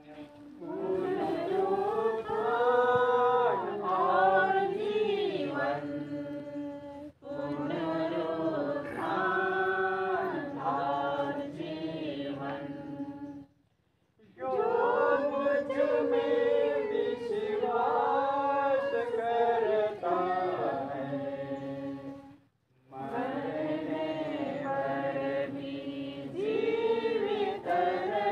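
Group of mourners singing a funeral hymn together in chorus, phrase after phrase, with a few brief pauses between verses.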